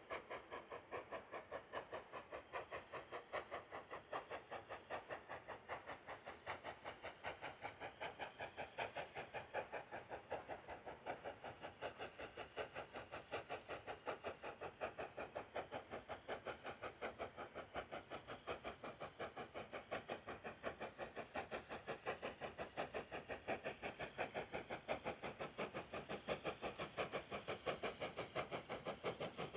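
Southern Railway Q class 0-6-0 steam locomotive working a goods train, its exhaust chuffing in a rapid, even beat with steam hiss, growing louder as it draws nearer.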